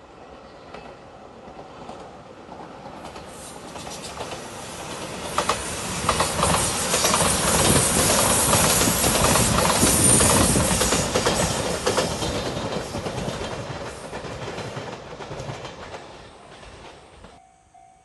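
Five-car electric limited express train passing by, building up, peaking and fading away, its wheels clacking rhythmically over the rail joints. Near the end a level-crossing bell starts ringing.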